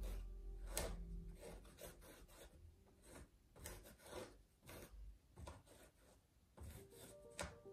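Charcoal pencil scratching across a painted, textured canvas in a dozen or so short, unevenly spaced strokes.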